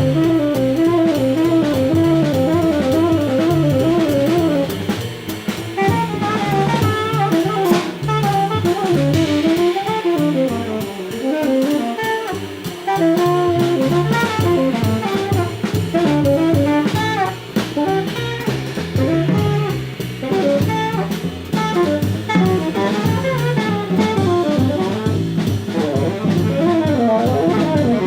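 Jazz trio of tenor saxophone, double bass and drum kit playing together: the tenor saxophone runs through fast, winding lines over stepping double-bass notes and steady cymbal and drum time.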